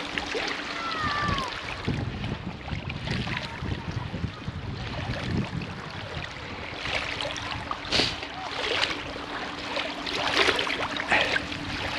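Shallow seawater swishing and sloshing as a shrimp push net is pushed through it by someone wading, with several louder swishes in the second half.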